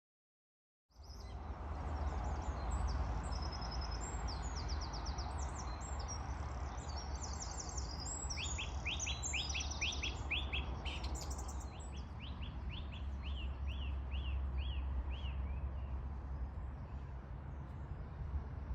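Garden birdsong: several birds chirping and singing with high, quick notes, then one bird repeating a series of short falling notes for several seconds. A steady low rumble runs underneath.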